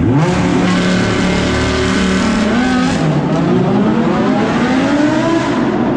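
Audi R8 sports car accelerating hard away, its engine revving up. About halfway through the revs drop at an upshift, then climb steadily again.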